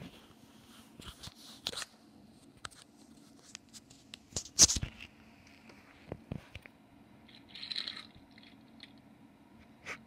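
Scattered clicks and knocks from a die-cast Matchbox toy car being handled and set down on a wooden ledge, with one louder knock about halfway through and a brief scraping rustle near the end.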